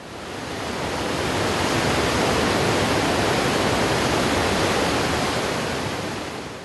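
Heavy rushing water: white water pouring through the gates of a small river dam, a steady rush that fades in over the first second and fades out near the end.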